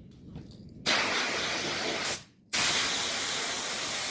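Compressed-air blow gun blasting air to blow dust off a seat: a loud hiss that starts about a second in, stops briefly after two seconds, then starts again.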